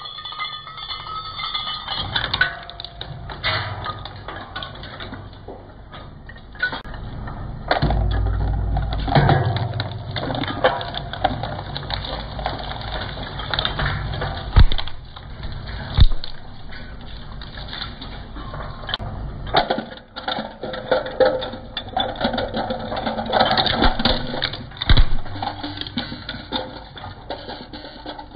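Twin-shaft shredder's interlocking steel cutter discs grinding metal crown bottle caps and small plastic pieces, with irregular crunching and clinking and several sharp cracks over a low machine rumble.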